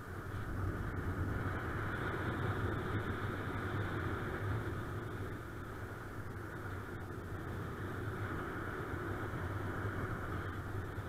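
Steady rush of airflow over a paraglider-mounted camera's microphone during flight, a low, even buffeting hiss that swells slightly about a second in.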